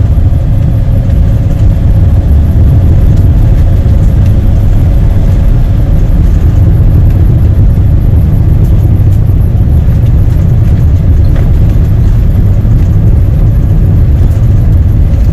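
A car driving along a rough road: a steady, loud, low rumble of tyres and engine.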